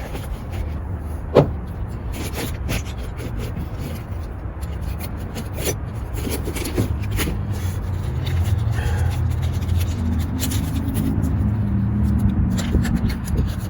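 Hand work on outboard carburetor parts: scattered clicks, knocks and rubbing as parts and tools are handled, with one sharp knock about a second and a half in, over a steady low rumble.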